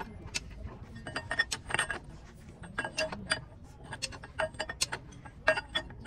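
Socket ratchet wrench clicking in short, irregular runs, with light metallic clinks, as bolts on a bulldozer's bottom track roller are turned.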